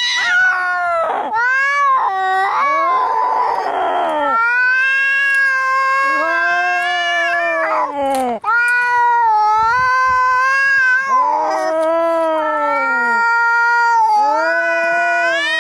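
Cats yowling at each other in a fight: long, drawn-out, wavering caterwauls that rise and fall in pitch, often overlapping. There is a harsh, rasping cry about three seconds in.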